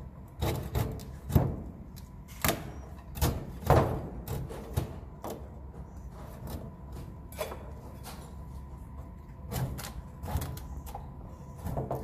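A long-handled nest scraper knocking and scraping against wooden ceiling planks as swiftlet nests are pried off. The knocks are irregular, come thickest in the first few seconds, then thin out before a few more near the end.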